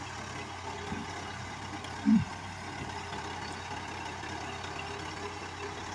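Kubota tractor's diesel engine idling steadily while the tractor sits stuck in mud. About two seconds in, a short, louder sound falls in pitch over it.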